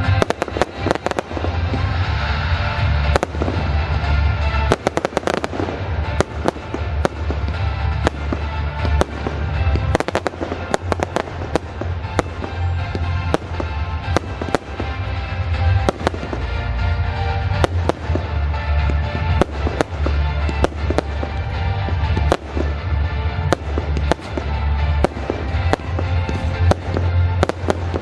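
Aerial fireworks display: a dense, continuous string of sharp bangs and crackling reports, over music with a heavy steady bass.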